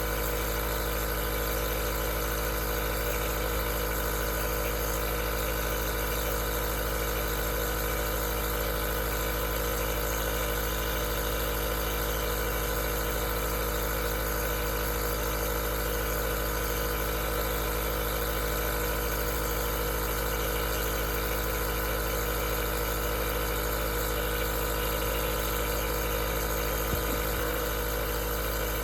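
Aerosol nebulizer running steadily: an even motor hum with a hiss of air that does not change.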